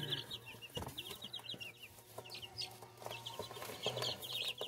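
Baby chicks peeping in a brooder: many short, high cheeps in quick succession, over a faint steady low hum, with a soft knock about a second in and another near the end.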